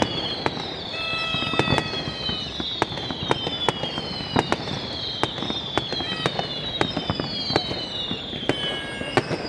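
A New Year's fireworks display going off: a dense run of sharp bangs and cracks, over which whistles fall in pitch again and again, about one a second.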